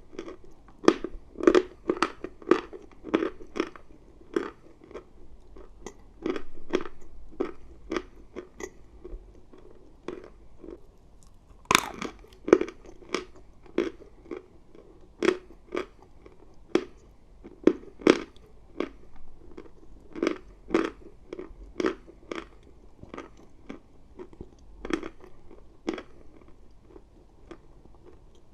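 Close-up chewing of dry chalk: a steady run of crisp crunches, roughly one or two a second, with one sharper bite-snap about twelve seconds in.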